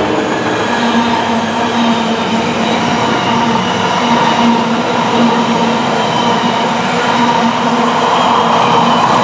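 Container flat wagons of an intermodal freight train rolling past at speed: a steady, loud rumble and rush of wheels on rail.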